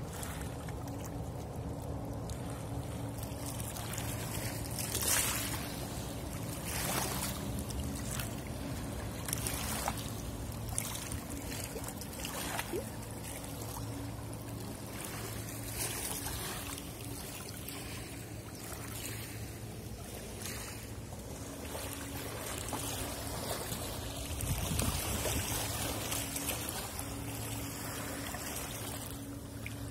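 River water lapping and splashing against a stony shore in small irregular waves, over a steady low drone from the engines of a passing river cruise ship.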